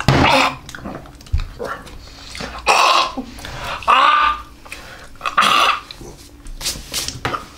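A man gagging, dry heaving and coughing in a series of short, noisy retches, about one every second, in disgust at a bad taste.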